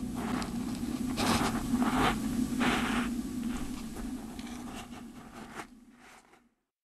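Scratchy scraping and rustling of a star-nosed mole's claws digging in soil, in several rough bursts over a steady low hum. It fades away and cuts off about six and a half seconds in.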